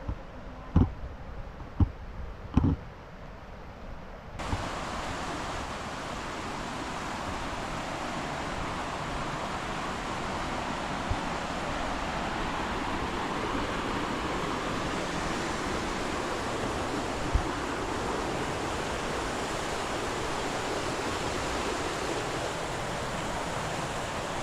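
A few dull thumps in the first seconds, then, about four seconds in, the steady rush of a waterfall's falling water starts abruptly and continues unbroken.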